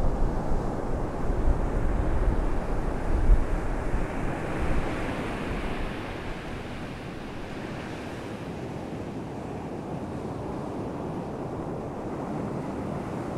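Muffled underwater water noise heard through a GoPro's waterproof housing: a churning low rumble that eases about five seconds in to a steadier, quieter wash.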